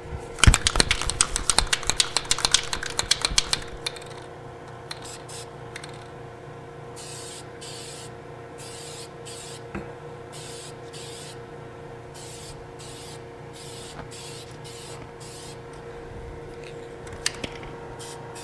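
Aerosol spray paint can shaken hard, its mixing ball rattling rapidly for about three seconds, then sprayed in a string of short hissing bursts, each about a second long, as a light coat of paint goes on. A steady hum from the spray booth's exhaust fan runs underneath.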